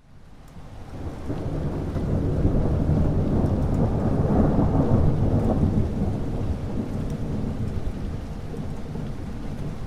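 Thunder rumbling during a thunderstorm. It builds over the first couple of seconds, is loudest around the middle, then slowly dies away, with rain hissing underneath.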